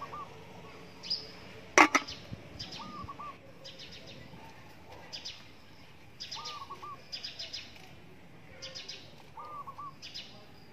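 Birds chirping and calling, with short high trilled chirps coming every second or two and a lower call repeated every few seconds. A single sharp crack about two seconds in is the loudest sound.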